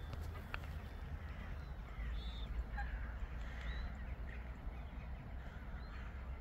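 A flock of waterbirds on a lake calling: scattered short calls, a few clearer arched ones, over a steady low rumble.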